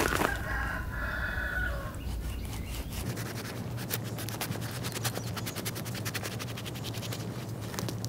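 A rooster crows once, one pitched call of about two seconds just after the start. Then comes a long run of rapid clicks as a knife cuts through the fibrous flesh of a jackfruit, over a low steady hum.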